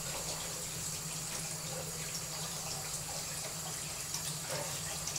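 Kitchen tap running steadily into a sink as hands are washed under it.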